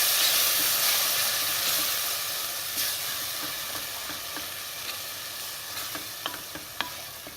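Tomato puree sizzling in hot oil in a pressure pan as it is stirred into fried onion masala. The sizzle fades steadily, and a few light clicks of the spoon against the pan come in the second half.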